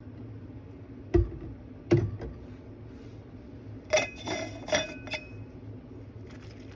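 Dishes and utensils being handled: two dull knocks, then several clinks about four seconds in that ring briefly, over a steady low hum.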